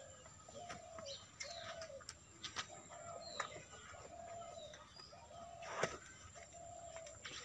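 Birds calling: a steady run of short, even notes repeating about twice a second, with higher chirps among them and a sharp click a little before the end.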